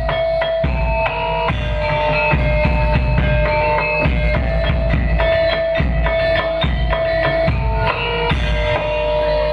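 Live topeng ireng dance accompaniment: heavy drumming with deep bass-drum beats, under a melody of held, sustained notes.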